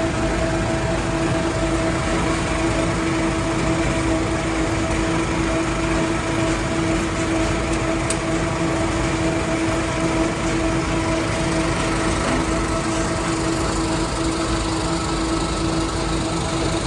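Sawdust pellet plant machinery running steadily: a constant mechanical drone with an even hum that does not change.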